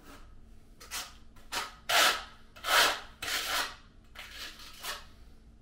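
A run of about seven short scraping strokes over some four seconds, the two loudest near the middle, from hand tile-setting work such as a trowel working thinset.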